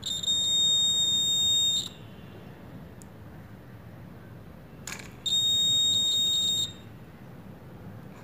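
Piezo buzzer driven by a small DC motor used as a generator: each hand flick of the fidget spinner on the motor shaft makes the buzzer sound a steady, high-pitched beep, twice, each about a second and a half long. A light click comes just before the second beep.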